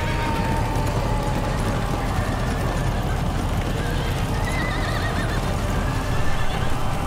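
Many horses galloping, a dense rumble of hooves, with horses whinnying over it a few times. It grows a little louder near the end.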